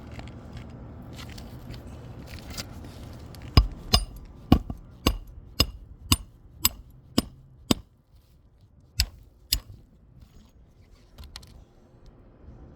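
Hammer driving nails through a new roof shingle: nine sharp blows about two a second, then two more after a short pause.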